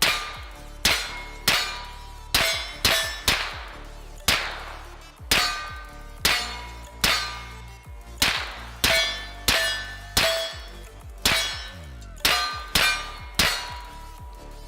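Rifle shots fired in quick succession, about twenty in all at uneven half-second to one-second spacing, many followed by a short metallic ring of bullets striking steel targets.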